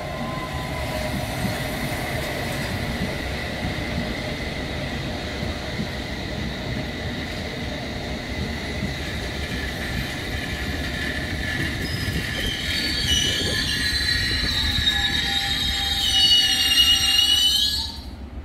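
London Underground S-stock train running into the platform and braking to a stop: a steady rumble with a high whine, then loud high-pitched wheel and brake squeals building over the last few seconds. The noise drops away suddenly as the train halts.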